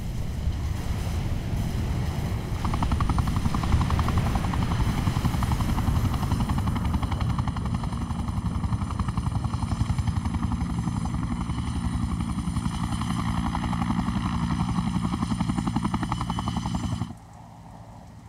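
A loud, engine-like mechanical drone with a fast, even pulsing beat, cutting off abruptly about a second before the end.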